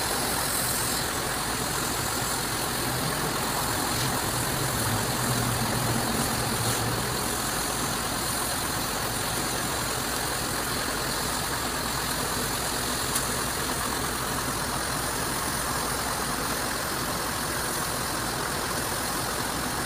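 A high-pressure water jet hissing against a truck cab, over a steady machine hum from the pump motor. It runs evenly without a break.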